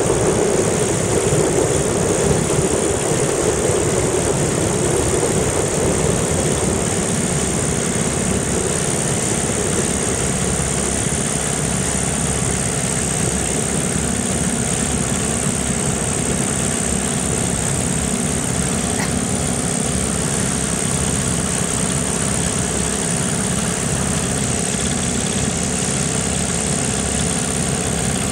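Lazair ultralight's twin engines running steadily at low power as it rolls along the runway, with wind noise on the microphone. The engine note is a little stronger in the first few seconds, then holds even.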